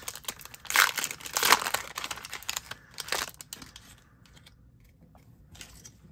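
A Disney Lorcana booster pack's foil wrapper crinkling as it is opened by hand. The sound is loudest in the first two seconds and thins to a few light rustles after about four seconds.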